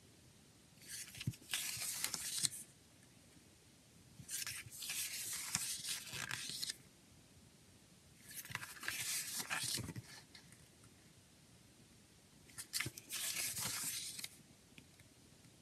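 Paper rustling as the pages of a CD booklet are turned by hand, four times, each rustle lasting a second or two.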